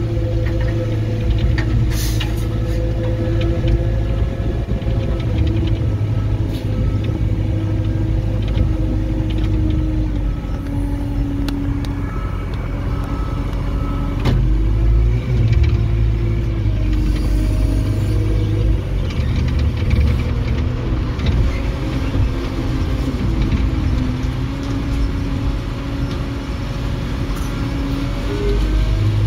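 Construction machine's engine running steadily, heard from inside its cab, with a whine that slides up and down in pitch as the machine works and a few sharp clicks.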